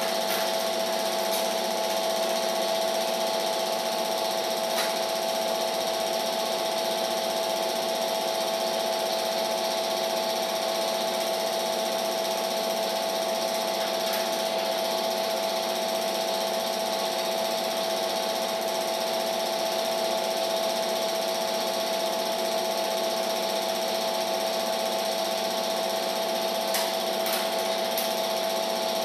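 Film projector running: a steady mechanical whir with a constant hum, and a few faint clicks.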